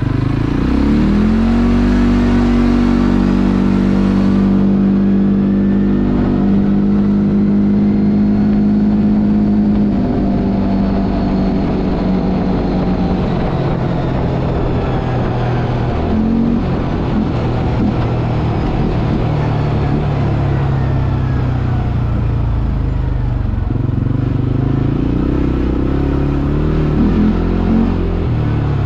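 CF Moto 450 ATV's single-cylinder engine pulling away and accelerating, rising sharply in pitch then holding a steady note for about ten seconds. It then eases off into a rougher, varying cruise and picks up again near the end.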